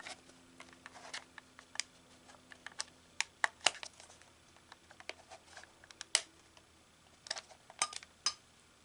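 Irregular small clicks and taps of the plastic housing of a smoke-alarm-style hidden camera being handled and pulled open to reach its USB-C port and SD card slot. The loudest clicks come about six seconds in and as a cluster near the end.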